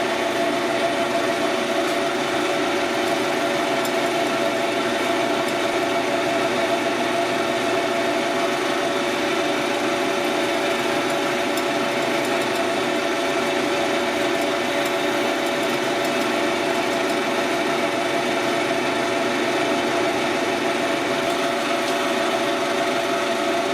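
Wood lathe running at a steady speed, its motor giving an even hum.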